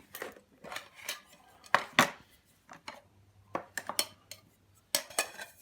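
Metal camp cookware being handled: a string of sharp clinks and taps, the loudest two close together about two seconds in.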